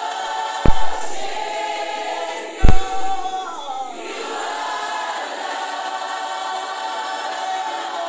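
Choir singing a slow gospel worship song with held notes. Two heavy low thumps cut through, under a second in and again about two seconds later.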